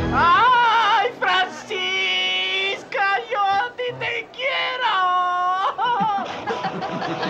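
A man singing high and unaccompanied, his voice swooping and wavering, with two long held notes, about two seconds in and five seconds in.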